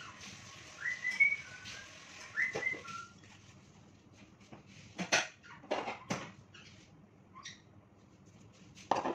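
A few short whistled chirps rising in pitch, the loudest about a second in, followed from about three seconds on by scattered light clicks and taps.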